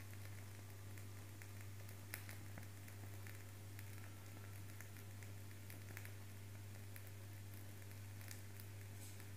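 Faint, irregular crackles from the fire burning in a small homemade can forge, over a steady low hum.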